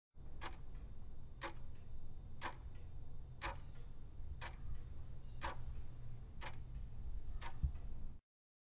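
Clock-ticking sound effect counting down the seconds of a quiz timer: eight crisp ticks, one a second, over a low steady hum, cutting off suddenly near the end.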